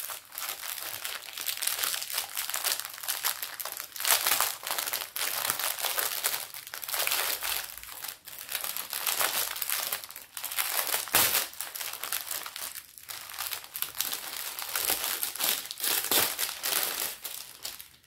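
Small plastic bags of square diamond-painting drills, joined in a strip, crinkling as they are handled: an irregular crackly rustle that swells and dips.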